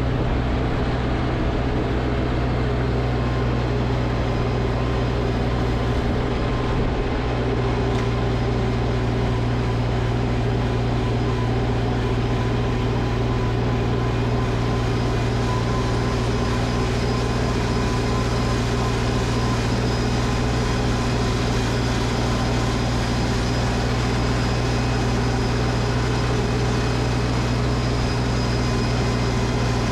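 Snowblower engine running steadily under load, a constant hum with a noisy wash on top that grows brighter about halfway through.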